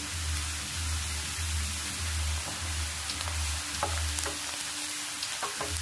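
Thin potato slices deep-frying in a pot of hot oil, a steady sizzling hiss from the oil bubbling hard around the freshly added slices. In the second half a slotted spoon goes in to turn them, with a few light clicks against the pot.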